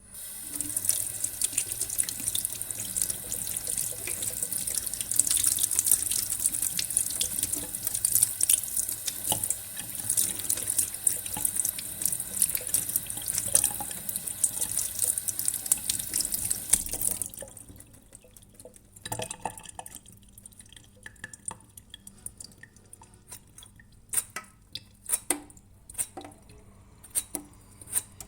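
Tap water running into a sink as persimmons are washed under it. About 17 s in, the water stops, leaving scattered small clicks and drips as the wet fruit is handled.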